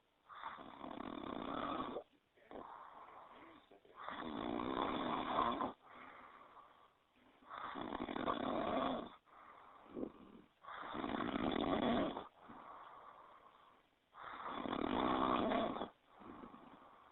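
Polar bear snoring: five loud snores about three and a half seconds apart, each followed by a quieter breath.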